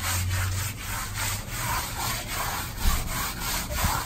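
Foam sponge float rubbing back and forth over a brick wall coated in wet white stucco: repeated scrubbing strokes of foam on rough masonry, smearing the stucco into the grout joints for a German schmear finish.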